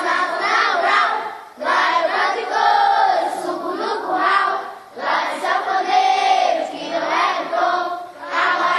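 A group of children singing together, in sung lines of about three seconds with short breaks between them.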